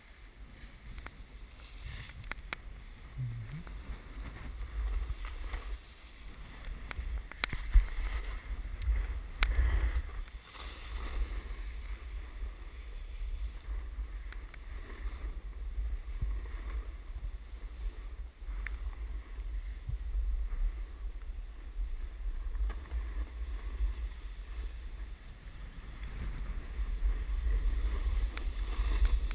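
Wind rushing and buffeting over an action camera's microphone as the rider snowboards downhill, with the board scraping over snow. A few sharp knocks, the loudest about seven and a half seconds in.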